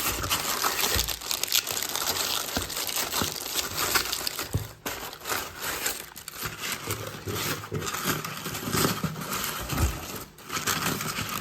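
Packaging crinkling and rustling as hands open a swag bag and rummage through its contents, in irregular crackly handling noise with a few soft knocks.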